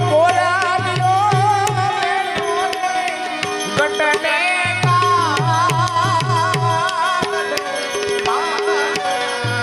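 Indian folk music: hand-drum strokes with low bass notes that slide down in pitch, repeated in quick runs under a wavering, ornamented melody line.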